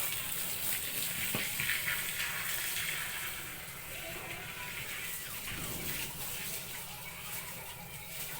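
Water running steadily with a hiss, a little softer after about three seconds, with faint voices in the background.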